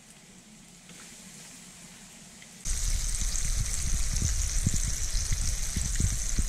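Flour-dredged kelp greenling fillets sizzling in hot oil in a frying pan: a soft sizzle that turns much louder about two and a half seconds in, with a steady high hiss and many small crackles and pops.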